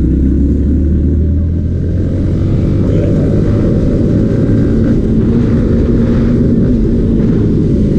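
Motorcycle accelerating hard in third gear, its engine note partly buried under heavy wind rumble on the rider's camera microphone.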